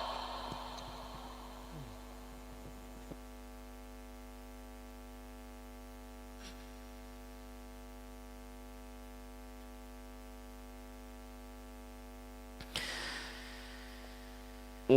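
Steady electrical mains hum from a PA sound system, heard after the echo of a chanted voice fades out. Near the end comes a brief short noise.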